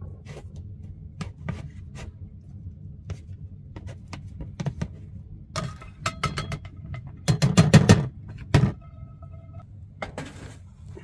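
Knife slicing through Spam on a plastic plate, the blade knocking the plate in a string of sharp clicks. Then a louder clatter as the cubes are scraped off the plate into a nonstick frying pan.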